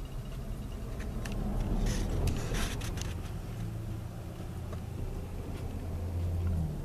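A pickup truck and an SUV driving past close by, engine and tyre noise loudest around two seconds in, then a steady low engine hum as the SUV pulls away, which stops shortly before the end.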